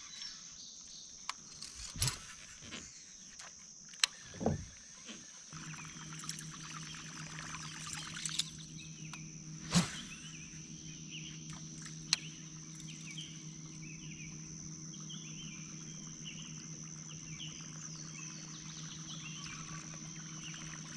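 A few sharp knocks and bumps on a fishing kayak, then a steady low hum that starts about five seconds in and holds. A steady high whine runs behind, with short chirping calls in the second half.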